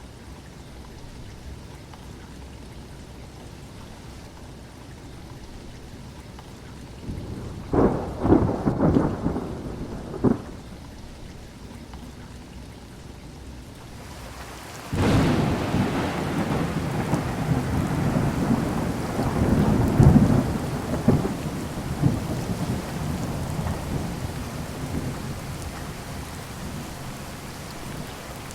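Steady heavy rain with thunder: a short crackling roll about a quarter of the way in, then a sudden loud clap about halfway that rumbles on and slowly dies away.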